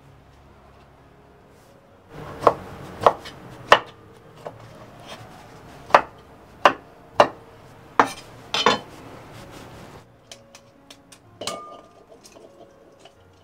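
Kitchen knife chopping green beans on a wooden cutting board: about nine sharp, irregularly spaced knocks over several seconds. Near the end, fainter small clicks and cracks of a boiled egg's shell being peeled.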